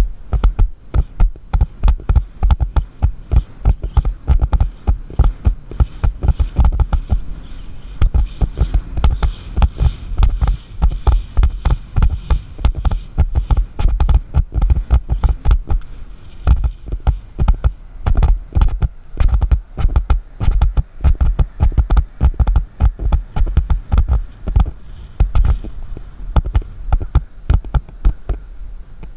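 A horse cantering on sand, heard close up from the saddle: a steady rhythm of heavy hoofbeat thuds, several a second.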